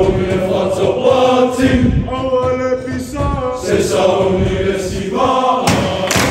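A large group of teenage boys singing together in unison on long held notes. Sharp hand claps in a steady rhythm join near the end.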